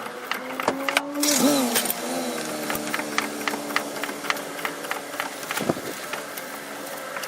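C-clamp ball joint press being tightened to drive the upper ball joint into the steering knuckle: a run of sharp metallic clicks over a steady tone that wavers about a second and a half in.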